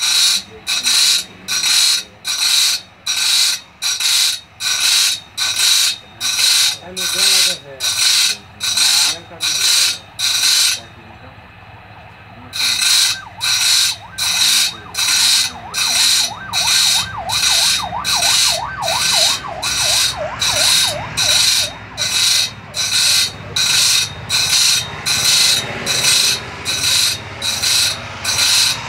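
Small electric bench grinder's abrasive wheel grinding the teeth of a steel bandsaw blade to sharpen it, a rasping grind in regular bursts about twice a second as the blade is fed against the wheel. The grinding stops for about two seconds around a third of the way through, leaving only the motor running, then resumes at the same pace.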